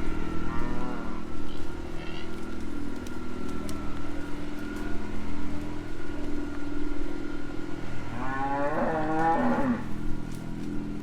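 Cows mooing at feeding time: a short moo about half a second in and a long, louder moo falling in pitch about eight seconds in, over the steady running of a vehicle engine.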